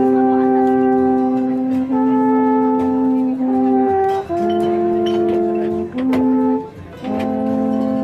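Three alphorns playing together in harmony: long held chords that move to a new chord every second or two, with short breaks between phrases and a brief pause about seven seconds in.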